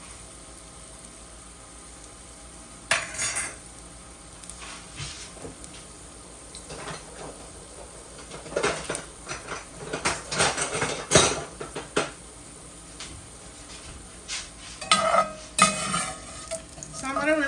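Metal utensils clinking and scraping against pots and dishes in several bursts, over the faint sizzle of hot cooking oil with garlic and pimento seed frying in it.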